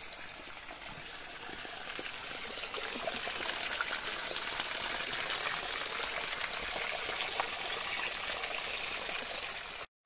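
Spring water pouring steadily from a short trough-shaped spout and splashing onto the ground below, a continuous running-water sound. It grows a little louder over the first few seconds and cuts off abruptly near the end.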